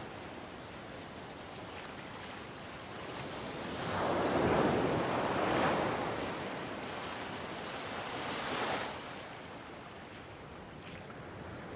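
Ocean waves breaking on a shore: a wave swells and crashes about four seconds in, a smaller one follows near the end with a hissing wash, then the surf subsides to a steady low rush.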